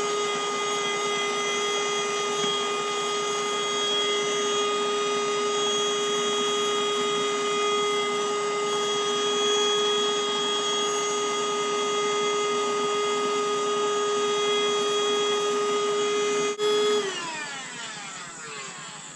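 DeWalt 20V Max cordless inflator's high-volume blower motor running with a steady whine as it fills the kayak's floor chamber. The raised pitch is the sign that the chamber is nearly full and pushing back. About 16 seconds in it is switched off with a click, and the whine falls away in pitch as the motor spins down.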